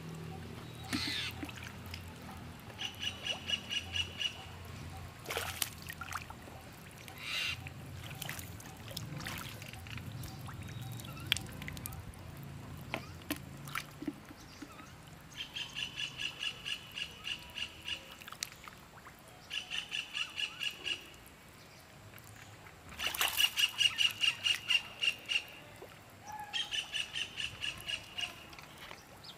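A bird calling in quick runs of harsh repeated notes, about five a second, in five separate bouts. The loudest bout comes near the end. There are a few short sharp knocks or splashes between the bouts.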